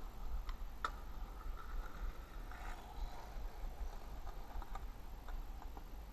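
Quiet open-square city ambience: a steady low rumble with a few faint, irregularly spaced ticks and clicks.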